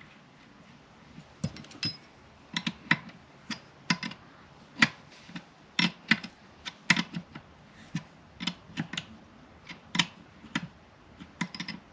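Irregular light metallic clicks and taps as a combination wrench is fitted onto and turns an oil temperature sensor being threaded into an aluminium oil filter housing.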